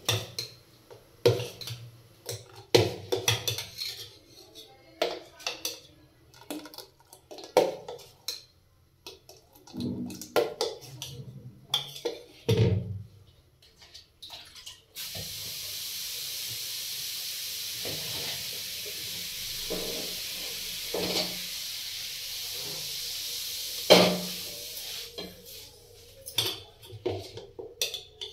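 A steel ladle knocks and scrapes against a steel pot as a thick semolina-and-dal batter is stirred. About halfway through, a steady rush of water runs for about ten seconds, poured from a plastic jug into the batter, with a few more knocks of the ladle during it and after it.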